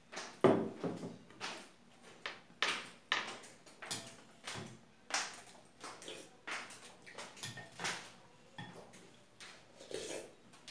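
Cheesy instant ramen noodles being slurped and chewed in quick repeated bursts, about one to two a second. About half a second in, the loudest sound is a glass being set down on the wooden table.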